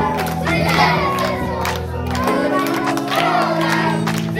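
A group of children singing and shouting a worship song and clapping along, over instrumental music with held chords that change about halfway through.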